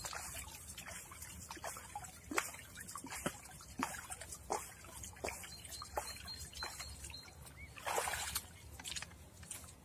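River water sloshing and trickling as a plastic bucket is dipped and filled in the shallows, with irregular small splashes. A louder splash comes about eight seconds in as the boots wade out of the water with the bucket.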